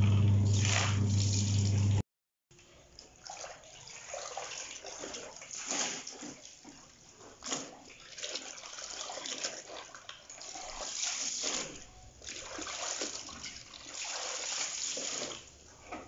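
Water splashing and sloshing as soaked clothes are kneaded and rinsed by hand in a plastic tub, with a hose running water in. The first two seconds carry a loud steady low hum that cuts off abruptly.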